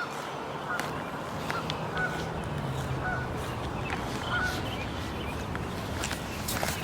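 Geese honking, with short high calls scattered over a steady outdoor hiss.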